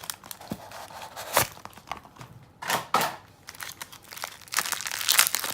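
Plastic packaging crinkling and rustling as Beyblade parts are unpacked and handled, with small sharp clicks of the parts. The louder rustling comes about three seconds in and again near the end.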